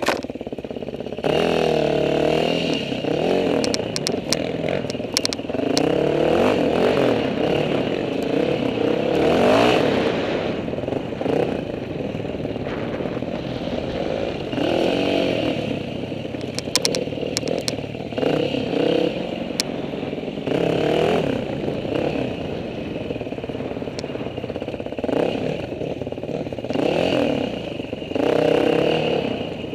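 Dirt bike engine revving up and down as it is ridden over a rocky trail, its pitch rising and falling every second or two, with scattered clattering knocks.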